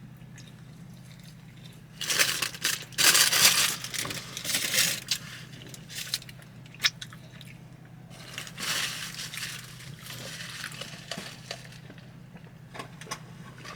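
Crinkling and crunching handling noise from eating a fast-food sandwich and its paper wrapper close to the microphone, loudest about two to five seconds in and again around eight to ten seconds, with scattered clicks. A steady low hum runs underneath.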